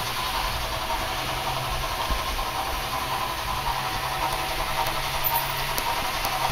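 Märklin model trains running on the layout: a steady electric-motor whir with the hum and rumble of wheels on the track. The low hum drops out briefly near the end.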